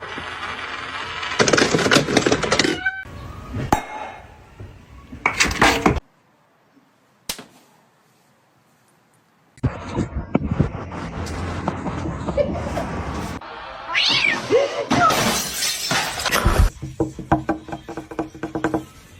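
Cats meowing in several short, separate stretches with abrupt cuts between them, and a gap of near silence about six seconds in.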